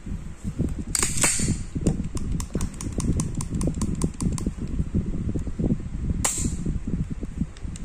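Rock Island Armory 1911 .45 pistol being function-checked after cleaning. The action gives two sharp metallic snaps, about a second in and again near six seconds, with a quick run of light clicks between them and hand-handling noise underneath.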